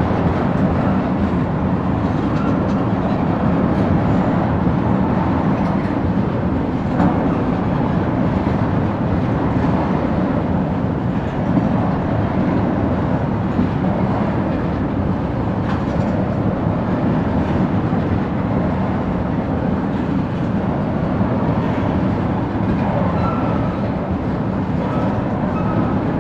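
Oil train tank cars rolling steadily past: a continuous rumble of steel wheels on the rails, with faint clicks as the wheels cross rail joints.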